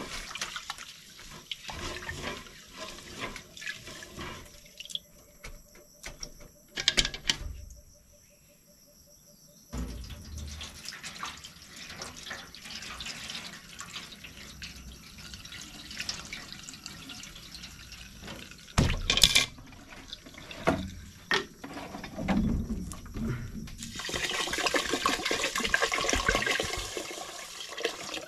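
Water running and splashing, broken by a few loud knocks, about 7 and 19 seconds in, and a short quiet gap.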